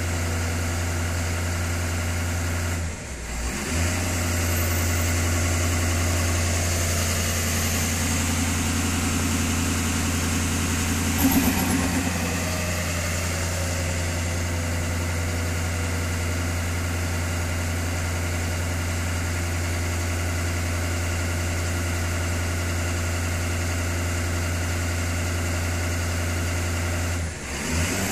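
Ford 6.7 Power Stroke V8 turbo-diesel running at a computer-raised idle while its turbocharger is cycled during an engine-running self-test. The engine sound drops briefly about 3 seconds in and again near the end. About 11 seconds in comes a short loud burst, the turbo cough, followed by a slowly falling tone.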